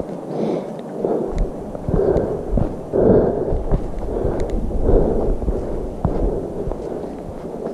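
A hiker's footsteps on a dirt and gravel trail in a steady walking rhythm, about one to two steps a second, with small sharp clicks of grit underfoot and wind rumbling on the microphone.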